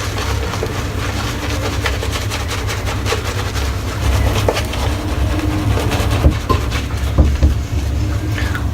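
Silvertip badger shaving brush working shaving lather over a face: continuous wet swishing with fine crackling clicks, over a steady low rumble.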